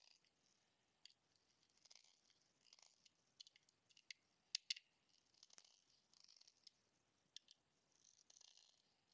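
A small precision screwdriver turning tiny screws into an aluminium Raspberry Pi case: faint scratching and light metal clicks, with two sharper clicks about halfway through.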